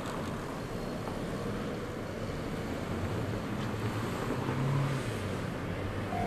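Steady outdoor road-traffic noise with a vehicle engine running. Right at the end, a level-crossing warning bell starts its repeating ding.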